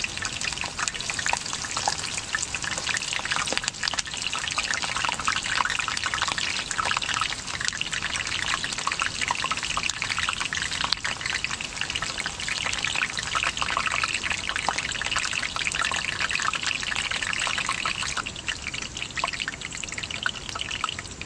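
Whole onion, cut into a flower, sizzling steadily in hot oil with dense small crackles as it fries and starts to brown.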